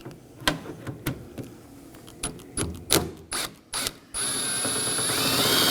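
A ratchet with a T30 Torx bit clicking in short runs as it backs out the door handle's retaining screw, then a steady whir with a faintly rising pitch for under two seconds, starting about four seconds in.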